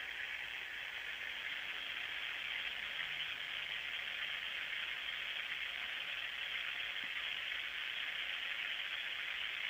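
Steady static-like hiss with no other sounds standing out.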